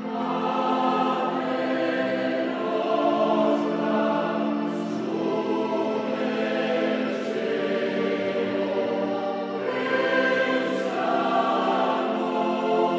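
Choral music: a choir holding slow, sustained chords, with new chords swelling in about five and ten seconds in.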